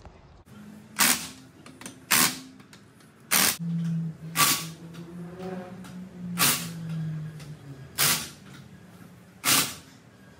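Workshop noise in an auto shop: seven short, sharp bursts, one every one to two seconds. A low steady hum runs for about four seconds in the middle.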